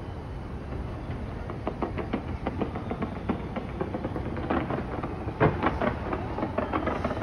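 Fireworks display: a steady rumble with a run of sharp bangs and crackles, thickest from about halfway in.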